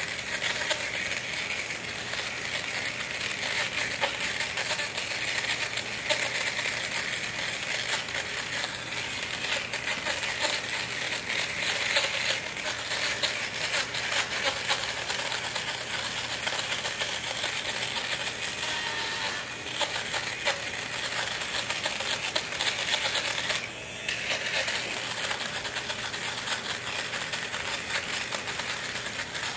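Electric fabric shaver running over a bouclé couch: its small motor whirs while the spinning blades crackle steadily as they cut pilled fuzz and stray fibres from the nubbly fabric. The sound drops out briefly twice in the second half as the shaver is lifted or paused.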